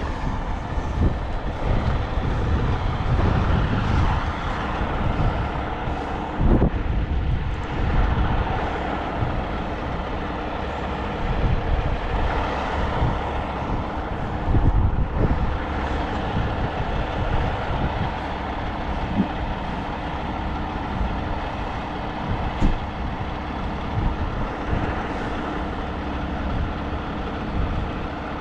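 Heavy truck engine running, a continuous low rumble with scattered knocks.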